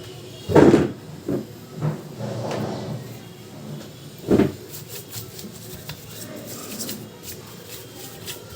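Dull knocks of a laptop's plastic bottom cover being handled, the loudest about half a second in and again about four seconds in, followed by a run of light clicks.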